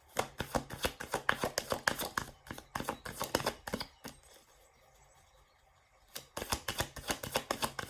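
Tarot deck being shuffled by hand: rapid crisp card clicks in two runs, the first lasting about four seconds, then a pause of about two seconds before a second run.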